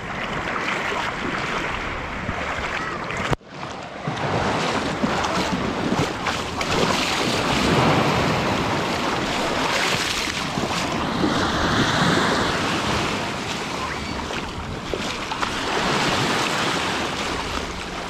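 Small waves washing over pebbles right at the water's edge, heard close up with wind on the microphone; the sea is calm, so the wash swells and eases gently. The sound cuts out sharply for a moment about three and a half seconds in.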